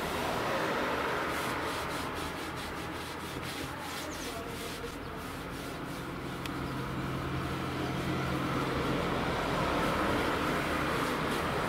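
Excess wood impregnating stain being wiped off an old wooden window frame: repeated rubbing strokes against the wood, continuing steadily after the first few seconds.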